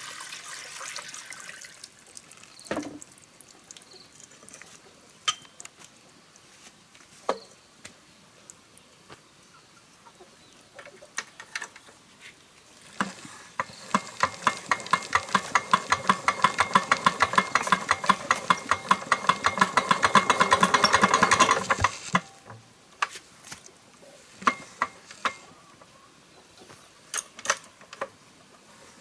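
Water poured briefly into the cooling-water filler of a small single-cylinder D8 diesel engine, then scattered knocks and clicks of hand work on the engine. From about 13 s a fast run of metallic clicking builds for about eight seconds and stops abruptly.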